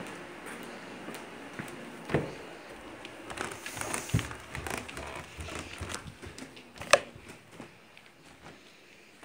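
Handling noise from a handheld phone: rustling against the microphone and scattered knocks, with a thump about two seconds in and a sharp click near seven seconds, the loudest sound.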